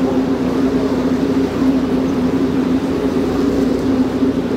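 Steady low drone of a tour boat's engine running at a constant pace, with water and wind noise over it.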